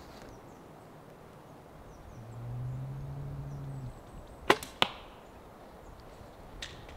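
A youth compound bow shot: a sharp snap as the string is released, then about a third of a second later a second crack as the arrow strikes the foam 3D badger target. A low steady hum runs for about two seconds before the shot.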